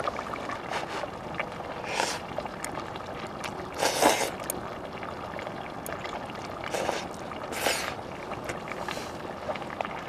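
Thin somen noodles slurped from a cup, four short slurps with the loudest about four seconds in, over a steady hiss.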